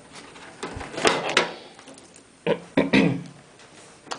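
Plastic clicks and knocks of a SATA cable connector being handled and pushed into place inside a computer case, in two clusters with a single click near the end.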